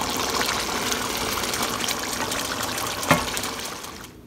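Chicken stew bubbling in a nonstick pan as it is stirred with a wooden spoon, a steady wet crackle with one sharp knock about three seconds in. The sound fades out near the end.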